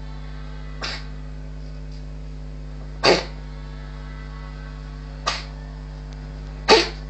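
A cat sneezing four times in a row, short sharp sneezes about two seconds apart. The second and fourth sneezes are the loudest.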